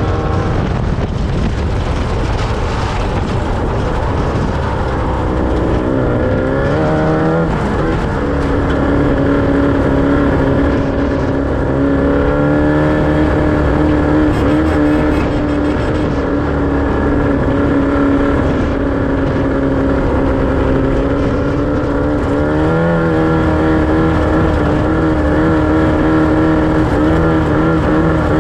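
Off-road race vehicle's engine running hard and continuously during a desert race lap. Its pitch climbs about five seconds in, drops back sharply near seven seconds, holds steady, then steps up again about twenty-two seconds in.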